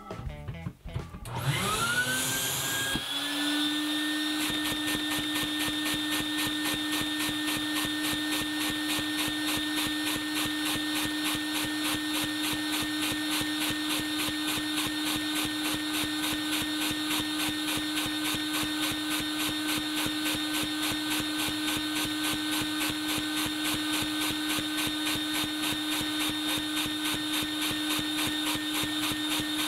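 A vacuum cleaner starts up about a second in, its whine rising in pitch, then runs steadily. Its suction drives a LEGO vacuum engine with angled valves, which clatters in a fast, even rhythm throughout.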